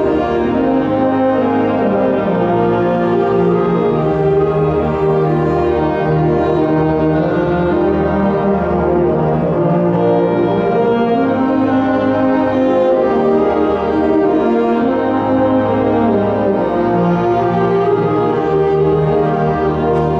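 Wind band of saxophones and brass playing held chords in a steady, continuous passage.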